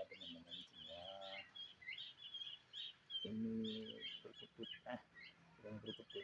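Birds chirping and twittering quickly and continuously. A few short, low, even-pitched calls sound over the chirps, about a second in, midway and near the end.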